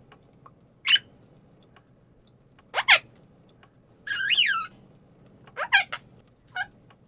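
A young quaker (monk) parakeet chattering in short squeaky calls about once a second, with a quick double call near three seconds in. About four seconds in it gives a longer wavering squeak, a mimicked kissing sound.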